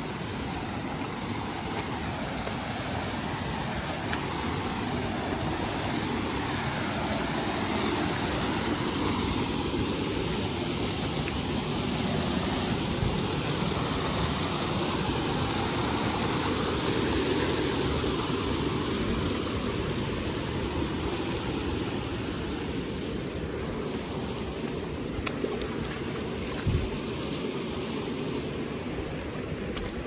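Shallow rocky river flowing over stones: a steady rush of water, a little louder midway. A single dull thump near the end.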